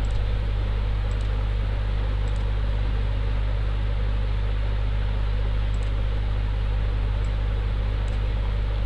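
Steady low electrical hum with hiss from the recording microphone, unchanging throughout, with a few faint ticks.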